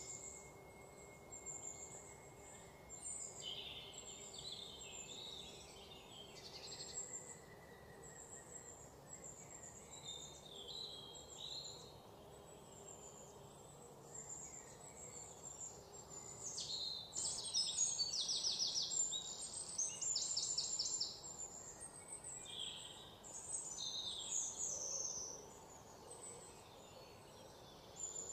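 Birds chirping and trilling outdoors, with insects, over a faint steady background; the calls are loudest and most frequent a little past halfway, where there are rapid trills.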